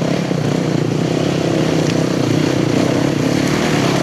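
Dirt bike engines running and revving unevenly as trail bikes ride through thick mud close by, working under load in the boggy ground.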